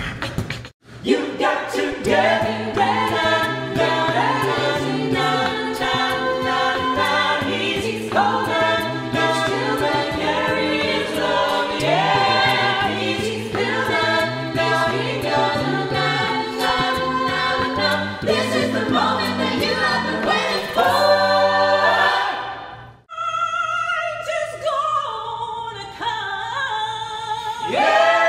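A cappella vocal group singing in close harmony over beatboxed vocal percussion keeping a steady beat. About 23 seconds in, the beat stops after a brief break and the voices hold sustained chords.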